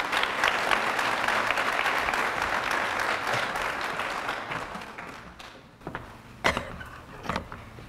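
Audience applauding, dying away after about five seconds, then a couple of sharp knocks near the end.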